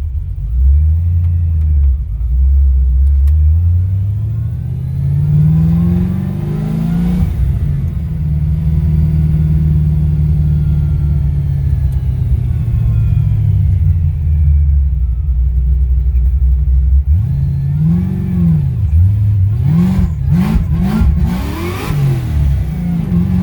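Supercharged 6.0-litre V8 of a 1971 Pontiac Firebird Formula under hard acceleration. The revs climb through a gear for several seconds, drop at a shift about seven seconds in, hold steady, then rise and fall quickly several times near the end, with a high whine following the revs.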